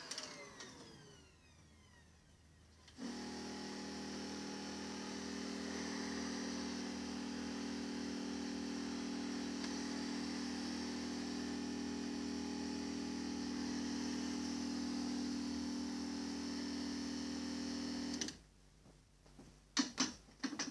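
An upright vacuum cleaner's motor winds down. About three seconds in, the electric pump of a wheeled carpet pre-spray unit starts and hums steadily while solution is sprayed onto the carpet through a hand trigger gun. The pump cuts off suddenly near the end, followed by a few sharp clicks.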